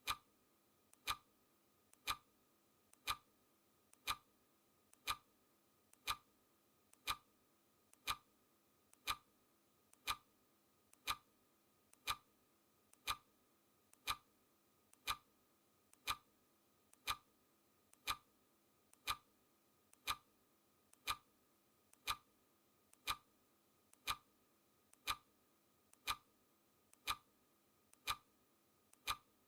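Clock ticking sound effect: an even tick-tock, two ticks a second, a louder tick alternating with a softer one.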